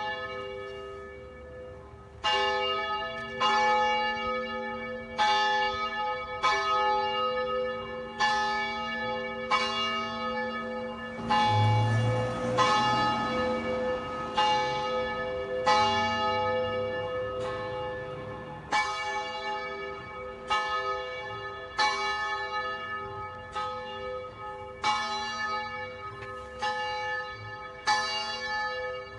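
Church bell rung steadily, a stroke about every second and a half, each stroke ringing on under the next so the tone never dies away.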